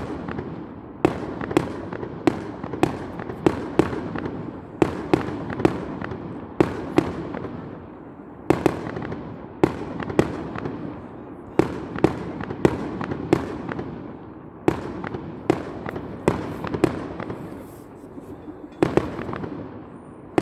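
Fireworks display: an irregular run of sharp bangs from shells bursting, about one to two a second, each trailing off in echo.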